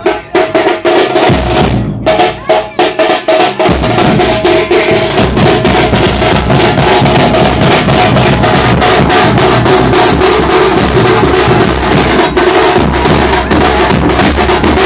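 A street drum band of large bass drums and smaller snare drums, all beaten with sticks, playing a fast, dense rhythm. The strokes come in short bursts at first, then run together into continuous drumming from about four seconds in.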